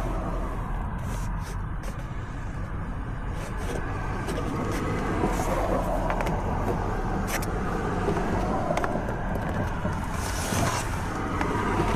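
Dash cam cable being pushed into a car's plastic interior trim by hand: scattered light clicks and rubbing over a steady low hum.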